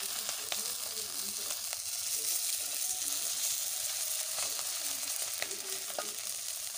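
Fish pieces sizzling steadily as they shallow-fry in hot oil in a metal kadhai. A few sharp clicks come from a slotted metal spoon against the pan as the pieces are turned.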